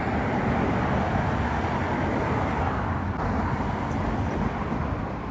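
Road traffic noise in a town street: a steady rush of car engines and tyres on the road.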